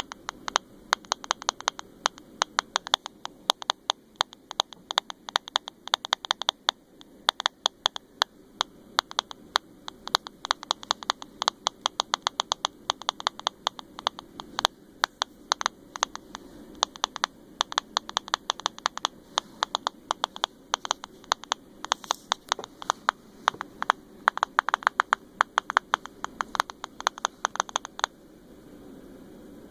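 Samsung Galaxy S7 Edge making loud, sharp clicking in rapid, irregular runs, a fault that shows up while WhatsApp is in use. The clicking stops near the end.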